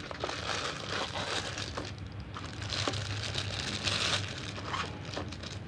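Packaging crinkling and rustling in irregular bursts as a new alarm clock is unwrapped, with small clicks of handling.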